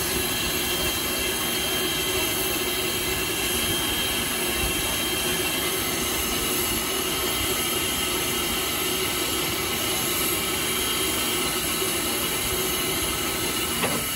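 Steam locomotive No. 89 standing at rest under steam, giving off a steady hiss and rumble.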